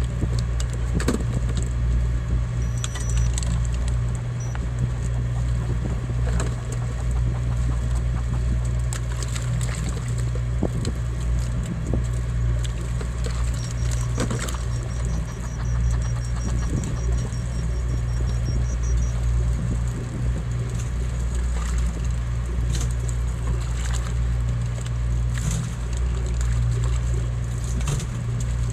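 Fishing boat's engine running with a steady low drone, overlaid by scattered clicks and knocks from gear being handled on deck.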